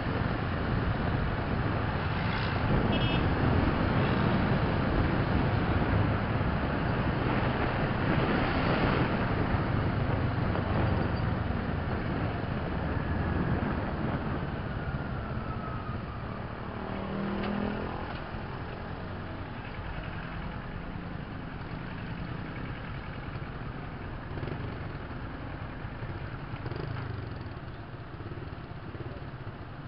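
Kawasaki ER-6n parallel-twin engine and wind rush, picked up by a helmet-mounted camera while riding in city traffic. The sound is loud at first, then drops off and stays quieter through the second half as the bike slows and comes to a stop.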